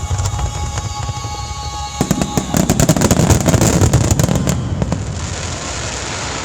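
Fireworks display finale: a rapid volley of bangs and crackles starts about two seconds in and is loudest between about three and four seconds, then fades to a steady rumbling haze. Music plays under the opening and cuts off as the volley begins.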